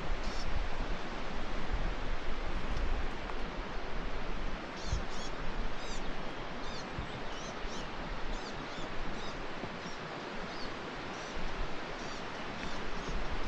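Outdoor mountain ambience: a steady rushing noise with an uneven low rumble, and a few short high bird chirps, most of them around the middle.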